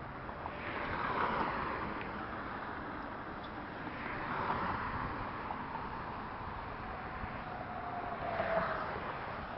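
Cars driving past, their tyre and engine noise swelling and fading three times: about a second in, midway, and near the end. The last pass carries a brief whine.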